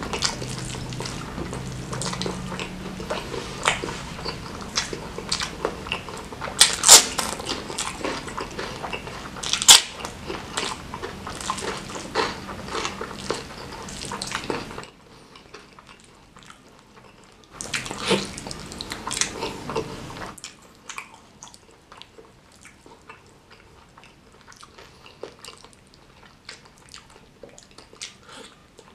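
Close-miked eating sounds of a man chewing a mouthful of nasi Padang, with wet mouth clicks and smacks, and his hand squishing sauce-soaked rice. Two sharp smacks stand out about 7 and 10 seconds in. It goes quieter about halfway, picks up again briefly a few seconds later, then settles into soft clicks.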